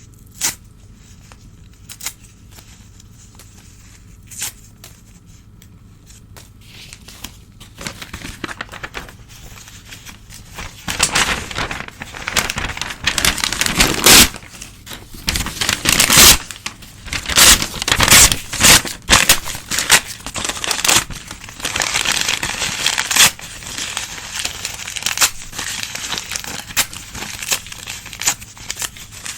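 Old newspaper being torn and crumpled by hand. A few light crackles at first, then from about eight seconds in a long run of loud ripping and rustling.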